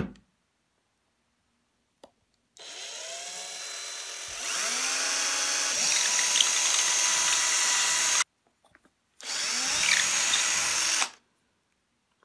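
Cordless drill spinning up and boring a hole lengthwise through a small wooden block. The first run lasts about five and a half seconds: its pitch rises as the motor speeds up, and it grows louder about two seconds in. After a short pause comes a second run of about two seconds.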